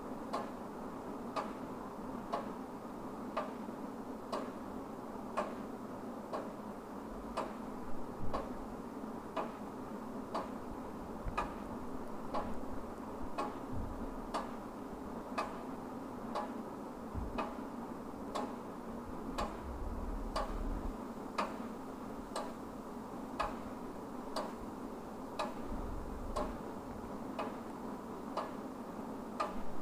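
Wall clock ticking steadily, about once a second, over a steady low hum.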